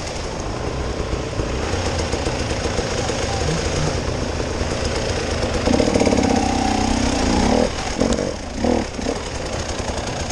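Off-road vehicle engine running steadily with a rapid, rattly pulsing, and a louder, steadier engine note for about two seconds just past the middle.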